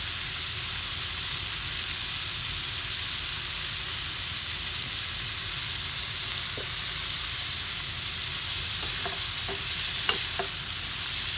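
Sliced bitter melon and meat sizzling steadily as they stir-fry in a pan, with a few light clicks of the stirring utensil against the pan near the end.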